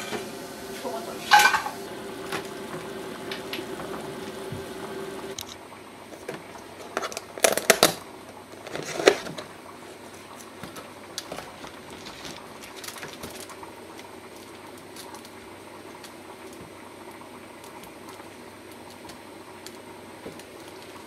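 A spoon scraping and tapping a frying pan as scrambled egg is tipped onto a plate, over a steady hum that stops suddenly about five seconds in. Then a paper cake box is opened and handled, with a short run of loud knocks and rustles, followed by quieter scattered handling sounds.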